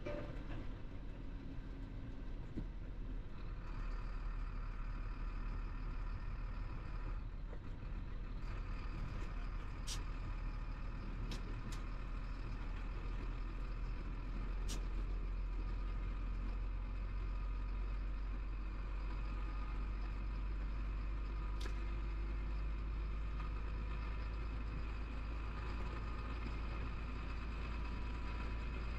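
Inside the cab of a Chenglong truck on the move: a steady low engine drone and road noise, a little louder from about four seconds in, with a few single sharp clicks.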